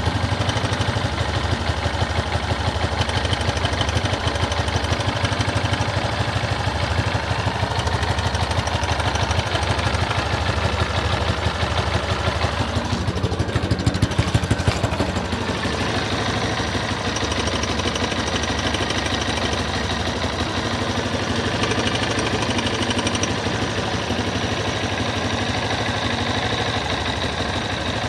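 Yamaha XTZ 250 Lander's single-cylinder four-stroke engine idling steadily, carrying a strange noise that the owner cannot identify. It gets briefly louder about halfway through.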